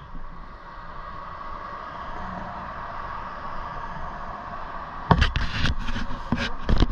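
Steady riding noise from an electric scooter ride, wind and running noise with a constant mid-pitched hum. About five seconds in it gives way to a run of loud thumps and buffets on the microphone.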